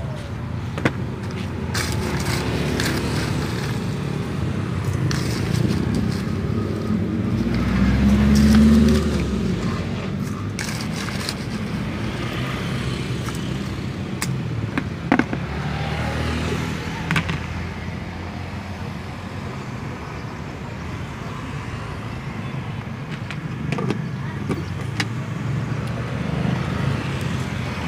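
Steady roadside traffic noise, with a motor vehicle passing close by about eight seconds in, the loudest moment. A few sharp clicks and knocks stand out here and there.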